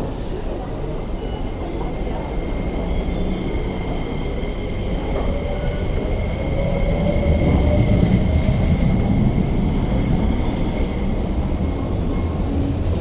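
MTR East Rail Line SP1900 (IKK) electric train pulling out of the platform and gathering speed. Wheel-and-rail rumble builds to its loudest about eight seconds in, under a whine that rises in pitch as it accelerates and thin steady high tones.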